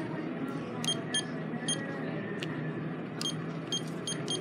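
Short electronic key-press beeps from a checkout card-reader keypad as a phone number is keyed in: about seven identical high beeps at an uneven typing pace, over steady store background noise.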